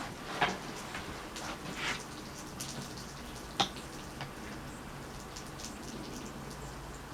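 Rain pattering lightly on the hut, with a few scattered taps and one sharp click a few seconds in.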